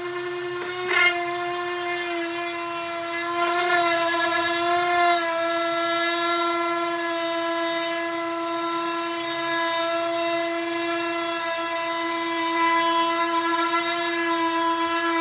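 Electric power sander running on wood with a steady, high whine. There is a sharp click about a second in, and the pitch sags slightly about four seconds in.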